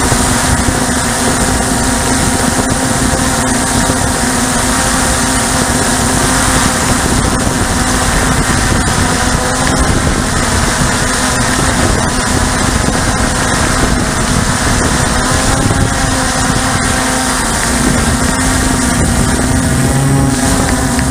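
Motors and propellers of a radio-controlled aircraft, heard from its onboard camera: a steady whine over a rushing hiss, shifting in pitch near the end.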